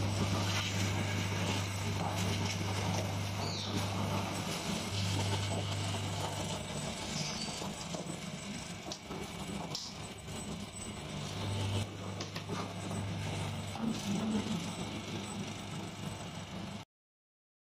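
Electric mincer running with a steady hum while it grinds wilted spinach fed down its chute, with scattered knocks. The sound cuts off abruptly near the end.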